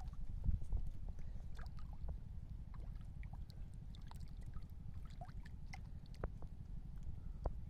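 A hooked fish splashing and thrashing at the surface of shallow water as it is drawn in on the line, with scattered small splashes and clicks over a steady low rumble.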